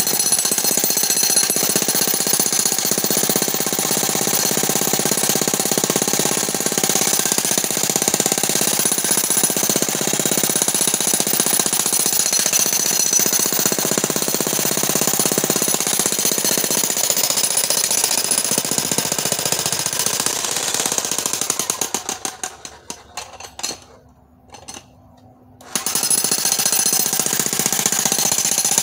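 Corded electric demolition hammer (breaker) chiselling into rock, hammering continuously. It stutters and stops about 22 seconds in, then starts hammering again a couple of seconds later.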